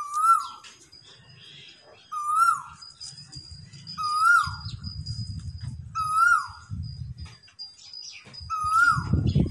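An animal repeating the same short call about every two seconds, five times; each call rises and then falls in pitch. A low rumble comes and goes under the calls in the second half.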